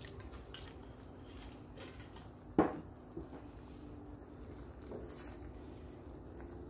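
Liquid pouring from a bottle into a pan of cream sauce, then a spoon stirring through the thick sauce, over a faint steady hum. A single sharp knock about two and a half seconds in is the loudest sound.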